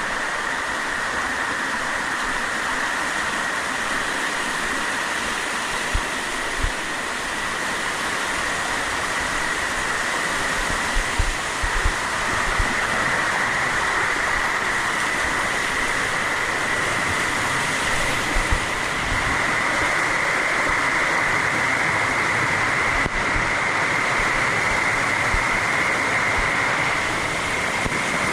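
Waterfall rushing steadily, with a few low thumps now and then.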